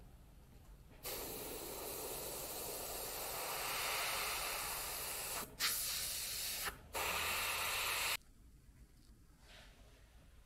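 Airbrush spraying silver paint for the scales on a wooden lure: a steady hiss that starts about a second in, breaks off twice for an instant, and stops after about seven seconds.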